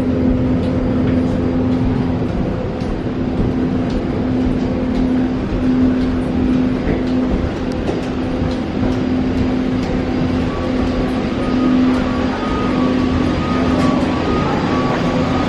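Steady mechanical drone of airport machinery at a jet bridge beside a parked airliner, with a low steady hum; a fainter, higher whine joins about ten seconds in.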